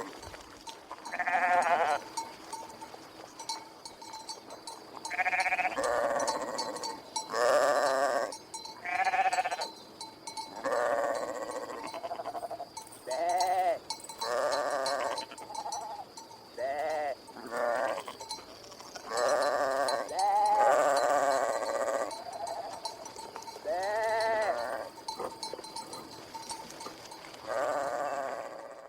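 Sheep bleating over and over: about fifteen quavering baa calls, each a second or two long, coming one after another with short gaps and at times running together.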